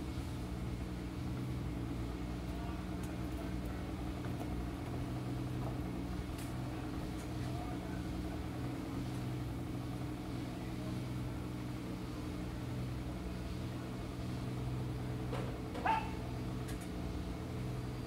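Steady low engine hum, unchanging throughout, with one short pitched call near the end.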